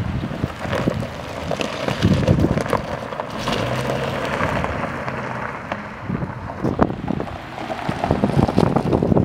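Wind buffeting the microphone over a Subaru Forester's boxer engine running at low speed, with its tyres rolling over loose gravel.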